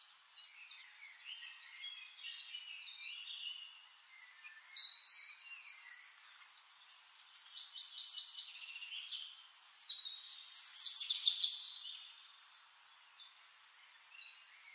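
Birds chirping and singing in a string of quick trills and whistles, loudest about five seconds in and again at around ten to twelve seconds.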